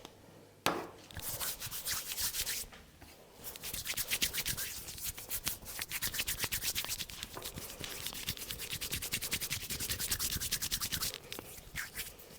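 Hands rubbing fast and hard over a person's hair and scalp in a head massage: a rapid rasping stroke repeated many times a second, with a short pause about three seconds in. A single sharp hit comes less than a second in.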